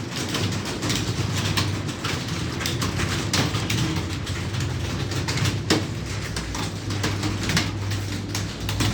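Computer keyboards clicking irregularly as several people type at once, over a steady low hum.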